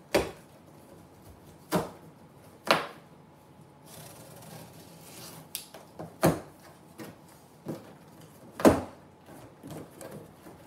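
Cardboard shipping box being cut open and handled with a box cutter: irregular sharp knocks, taps and scrapes of cardboard, about eight in all, the loudest about three-quarters of the way through.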